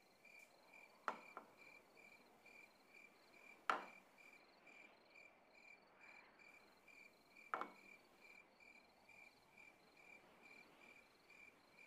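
A cricket chirping faintly and steadily, about three to four chirps a second. Three sharp clinks of teacups being handled, about one, four and seven and a half seconds in.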